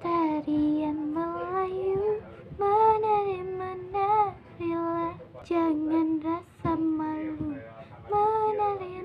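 A girl singing a Malay song solo, holding long notes that bend up and down between short breaks.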